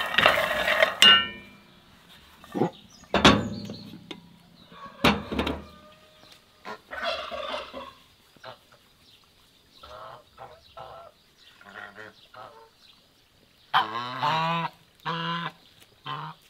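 Farmyard fowl calling, a few short calls at first and then a louder run of wavering calls near the end. Sharp knocks and clatter in the first few seconds, loudest right at the start.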